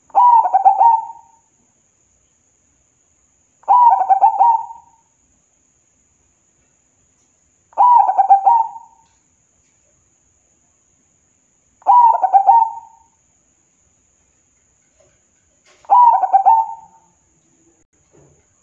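Zebra dove (perkutut) cooing: five quick, stuttering coo phrases, each about a second long, repeated about every four seconds.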